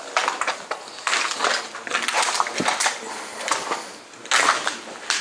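Footsteps crunching over debris scattered on a hard floor, several irregular crackling steps.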